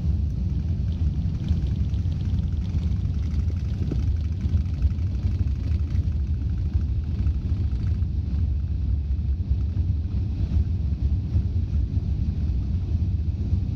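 Steady low rumble inside the cabin of an Airbus A380 during takeoff, from its four turbofan engines and the airframe.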